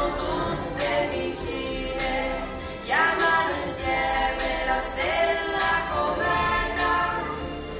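A Christmas song with jingle bells ringing about once a second and singing voices.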